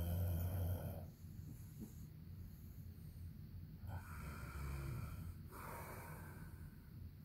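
A man snoring in his sleep: one snore at the start and another, longer one about four seconds in, with quieter breathing between.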